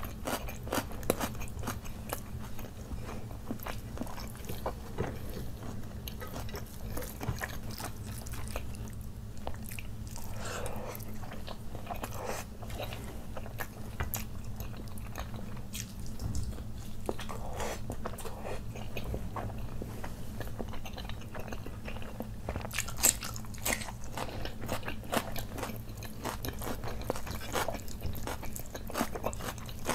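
Close-miked eating sounds: chewing and biting into butter chicken, fried rice and fried chicken eaten by hand, with many short wet clicks and some crunchy bites throughout.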